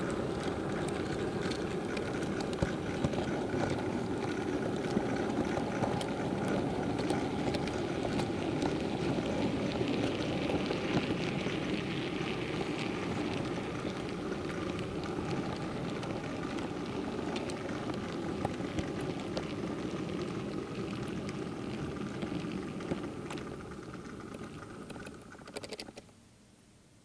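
Model freight train running along the track, heard through a camera riding on the train: a steady rolling rumble with light clicks from the wheels and rail joints. It eases off as the train slows, then stops abruptly about a second before the end.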